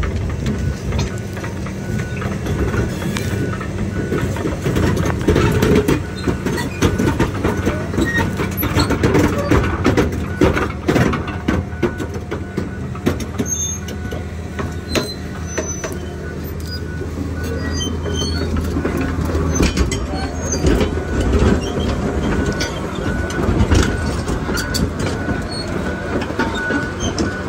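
Tigercat logging machine's diesel engine running steadily under load while its hydraulic grapple works, with frequent cracks, snaps and clanks of wood and steel.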